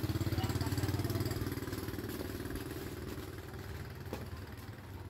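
A motorcycle engine running with a steady low hum, fading away as it moves off.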